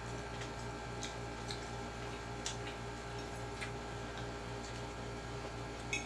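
Steady low electrical hum with faint, scattered short clicks and ticks.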